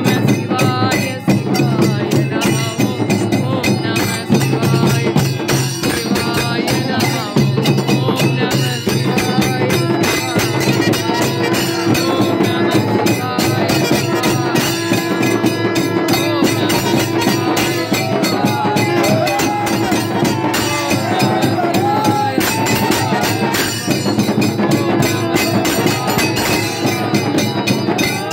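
Traditional festival music: fast, continuous drumming and jingling percussion over steady held droning tones, with a wavering melody line coming in about two-thirds of the way through.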